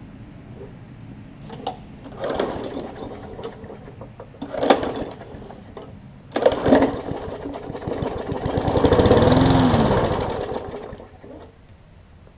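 Briggs & Stratton Classic push-mower engine pull-started with a few tugs of the recoil cord, then catching on carb cleaner sprayed into the carburetor throat: it runs for about four seconds, revving up and then dying away. It fires on the cleaner, a sign it has spark and compression and only lacks fuel from the carburetor, which is due a new diaphragm.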